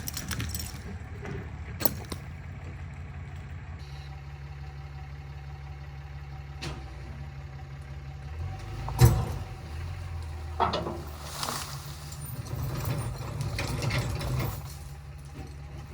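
Bobcat skid steer's diesel engine running steadily, with a few sharp knocks and clunks, the loudest about nine seconds in. The engine gets louder and rougher for a few seconds near the end.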